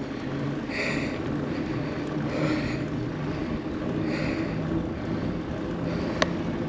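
Riding noise from an e-bike under way: wind buffeting the microphone over a steady low hum. A single sharp click comes near the end.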